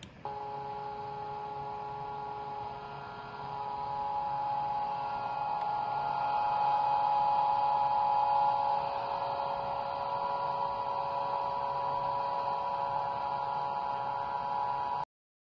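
HB3000+ vibratory stress relief exciter, an electric motor clamped to a welded steel workpiece, running with a steady hum of several level tones from the motor and the vibrating steel. It grows louder a few seconds in, is loudest around the middle, and cuts off suddenly near the end.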